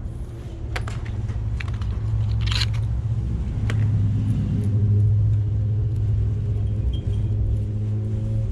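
A motor running with a steady low hum, typical of an air compressor inflating a tubeless tyre, with a few short clicks and rattles on top.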